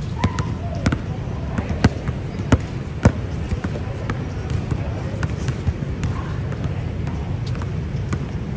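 Basketball bouncing on a hard court, irregular sharp knocks from dribbles and bounces, the loudest about three seconds in, over a steady low background rumble.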